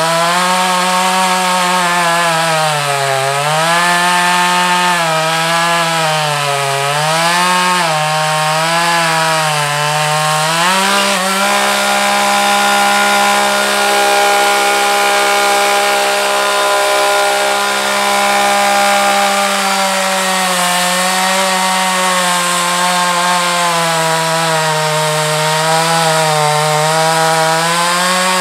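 Gas chainsaw running at high speed while cutting through a log. For the first ten seconds or so the engine pitch repeatedly sags under load and recovers. About halfway through it holds a steady pitch for several seconds, then goes back to dipping and recovering near the end.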